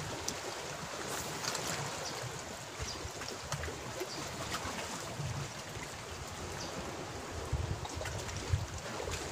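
Sea water lapping and trickling among shoreline rocks, a steady low wash with scattered small clicks.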